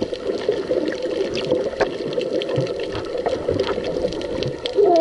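Muffled water noise heard through an underwater camera: sloshing and bubbling with scattered small clicks.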